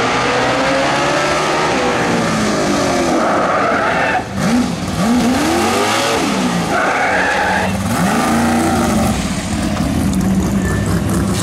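Motorized hose cart's racing engine revving hard, its pitch swinging up and down several times, then settling to a steadier, lower run near the end.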